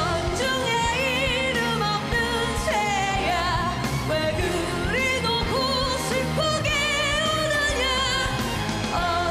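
Female vocalist singing a Korean rock ballad at full voice, holding long notes with a wide vibrato and sliding between pitches, over a full rock band backing with drums and bass.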